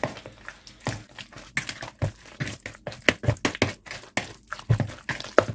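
A bare hand mixing raw chicken pieces into a wet spice paste in a glass bowl: irregular squishing and slapping, several short sounds a second.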